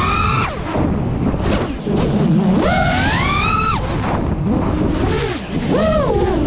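5-inch FPV quadcopter's motors and propellers whining, the pitch surging up and dropping back with each throttle punch through flips and dives, over a steady rushing noise. The biggest surge comes about two and a half seconds in, with two shorter ones near the end.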